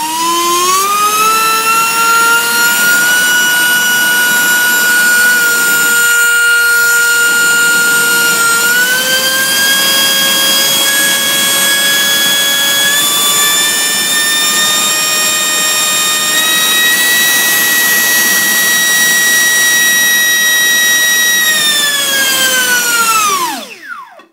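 Schubeler DS-30 70 mm three-bladed carbon-fibre electric ducted fan, driven by a Mega 1615 motor, running up to full throttle on a 3S pack with a loud, high whine. Its pitch rises at the start, steps up about a third of the way through and again later, holds near its top speed of roughly 420 W, then winds down near the end.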